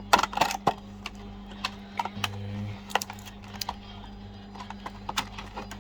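The speaker's retail packaging being opened and handled: irregular clicks, taps and scrapes, busiest in the first second. A steady low hum runs underneath.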